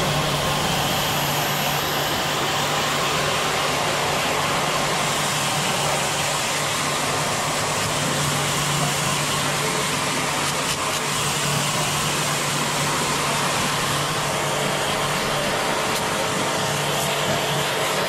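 Electric pressure washer (jet pump) running with a steady motor hum, its water jet hissing as it sprays onto the fins and casing of a window air conditioner.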